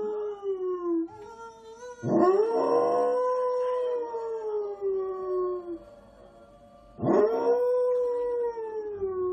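A dog howling: a howl trails off about a second in, then two long howls follow, each swooping up at the start, holding a steady pitch for a few seconds and sliding down at the end.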